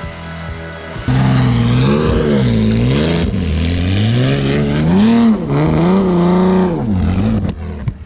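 Berta Tornado single-seater race car's engine, loud from about a second in, revving hard with its pitch swinging up and down several times in quick succession as the rear wheels spin and the car slides. It dips briefly near the end.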